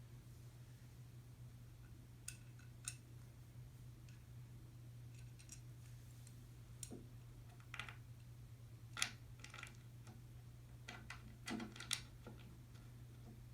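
Scattered light clicks and taps, about ten spread unevenly, from a tower speaker's legs being handled and screwed in finger-tight, over a faint steady low hum.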